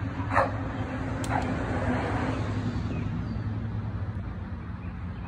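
Steady low hum of road traffic, swelling about two seconds in as a vehicle passes. Near the start a dog gives two short, sharp barks.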